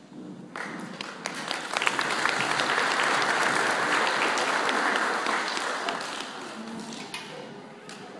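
Audience applauding, starting about half a second in, at its fullest through the middle and dying away near the end.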